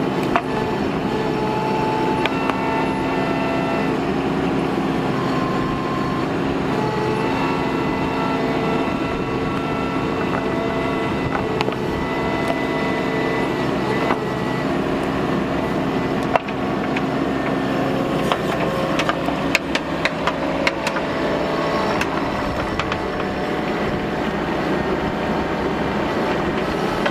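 Bobcat mini excavator's diesel engine running steadily under load while it digs, with whining tones that shift in pitch as the hydraulics work the boom and bucket. Scattered sharp knocks in the later part, from the bucket working in the ground.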